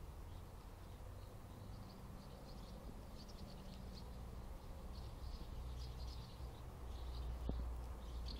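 Faint, high-pitched sparrow chirps coming in short irregular clusters, over a steady low rumble.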